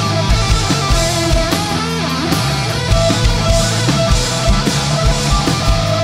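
Hard rock band playing live: electric guitars, bass guitar and drums, with notes bending and wavering in pitch over a steady drum beat.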